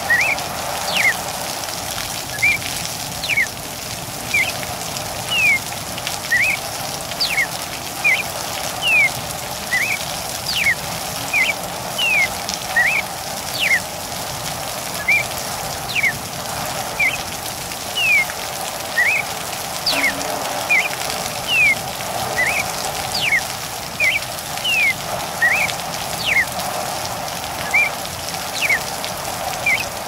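Steady rain with a cardinal calling over it: short, sharp downslurred whistled notes, one or two a second.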